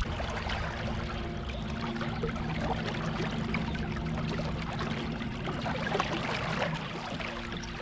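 Water lapping and trickling against a bass boat's hull, many small splashes over a steady low electric hum from the bow-mounted trolling motor.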